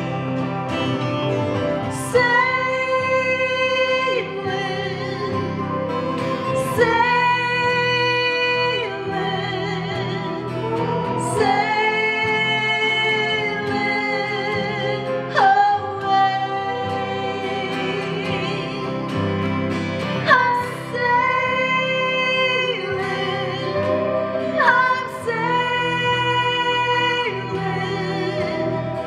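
A woman singing a slow song in long held notes, accompanied by acoustic guitar.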